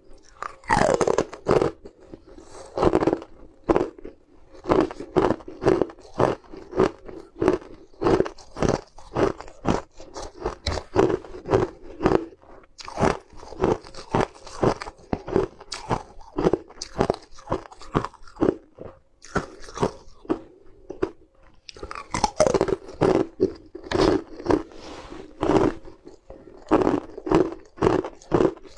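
Frozen rose-shaped green ice being bitten and chewed close to the mouth: a steady run of sharp, brittle crunches, about one to two a second, with the loudest bites about a second in and again near the end.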